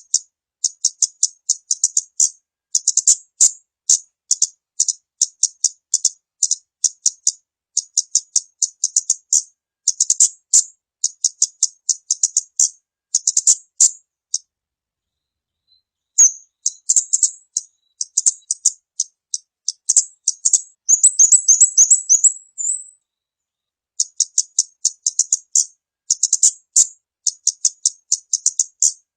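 Kamade (pied fantail) lure call: quick runs of short, high chirps repeated several times a second, with a brief pause about halfway and a faster rising trill a little later.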